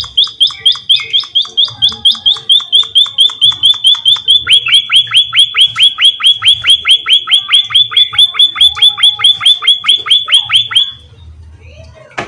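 An emprit (pipit) bird calling in a rapid, even series of sharp, downward-sliding chirps, about five a second. The notes lengthen about halfway through, and the series stops about a second before the end.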